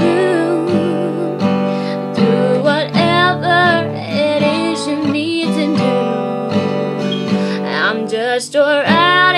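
Woman singing a slow original country-folk ballad with vibrato over a strummed acoustic guitar.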